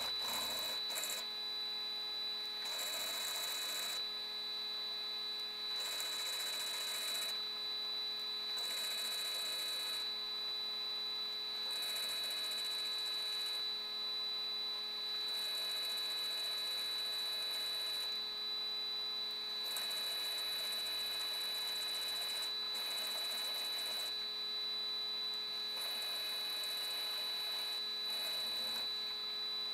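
Milling machine spindle running with a steady hum and high whine as a twist drill bores through a grade 8 bolt. The cutting hiss comes and goes in spells of a second or two.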